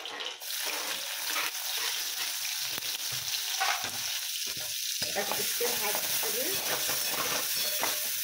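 Chopped onions dropped into hot mustard oil in an aluminium kadai, sizzling from about half a second in and frying steadily. A metal spatula scrapes against the pan as the onions are stirred.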